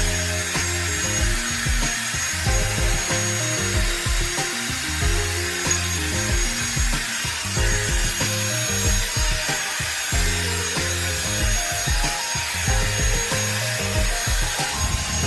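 Revlon One-Step hair dryer brush running, a steady rush of motor and blown air with a faint high whine, over background music with a steady beat. The dryer cuts off right at the end.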